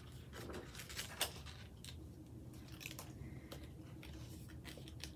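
Card stock paper being handled and folded: faint, scattered crinkles, taps and rustles.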